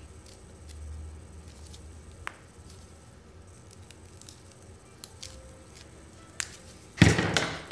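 Pliers and a wire harness being handled at a workbench: a few light clicks, then a short, loud scrape near the end.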